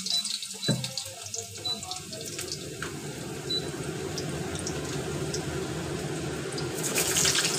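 Potato pieces frying in hot mustard oil in a steel kadai: a steady sizzle, with a single knock about a second in, growing louder and more crackly near the end.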